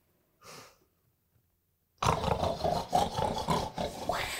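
Loud animal-like growling and roaring that starts suddenly about two seconds in, after near silence.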